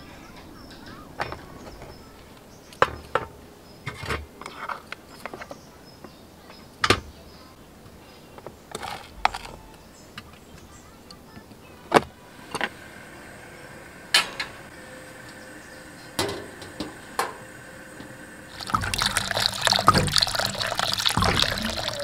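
Scattered light clicks and clinks of utensils and cookware, then near the end a pot of tteokguk (rice-cake soup) boiling hard on a portable gas stove, a loud, dense bubbling that runs for a few seconds.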